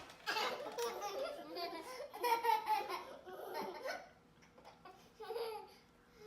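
A young child laughing in a run of bursts for about four seconds, then once more briefly near the end.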